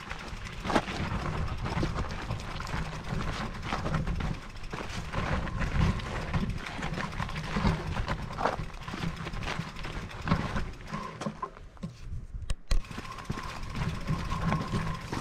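Electric mountain bike being ridden over rough trail: a constant low rumble with uneven rattles and knocks from the bike. A short lull comes about twelve seconds in, then a sharp knock.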